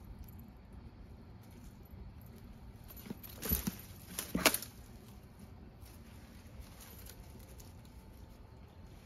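A cat rummaging through dry leaves and plant stems, with two short bursts of rustling about a second apart just past the middle.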